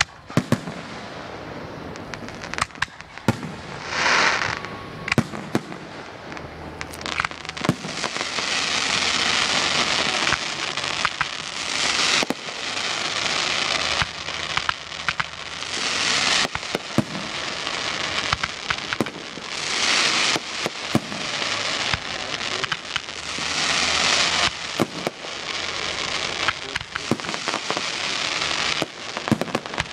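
Aerial fireworks shells launching and bursting in a public display: a busy run of sharp bangs, with several long stretches of hiss from the bursting effects in between.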